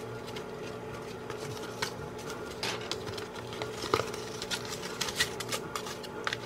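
Hands folding and wrapping a flour-tortilla burrito on a paper plate: soft rustling with scattered small clicks and taps, busiest in the second half, over a steady low hum.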